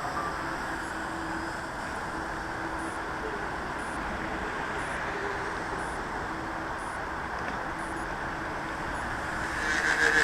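Radio-controlled FunCub model airplane's electric motor and propeller buzzing faintly in flight over a steady rushing background, growing briefly louder near the end as the plane passes close.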